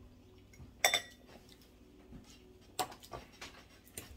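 Metal forks clinking and scraping against ceramic bowls while eating noodles: one sharp clink about a second in, then a few softer knocks near the end.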